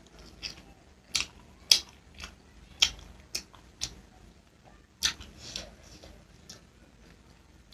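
Close-up mukbang eating sounds: chewing and mouth smacks as homemade chicken momo dipped in pickle is eaten, heard as a dozen or so irregular sharp clicks.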